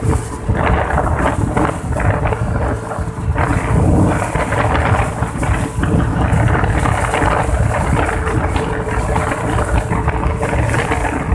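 Wind rumbling over the microphone on a moving Yamaha Mio Sporty scooter, with the scooter's engine running steadily underneath.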